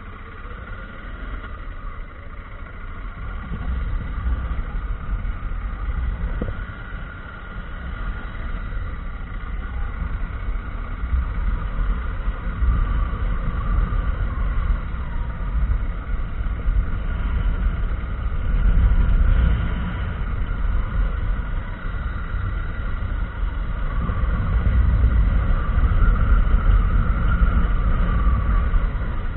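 Motorcycle ridden at road speed, heard from on the bike: engine running under a continuous low rumble of wind, swelling louder twice in the second half.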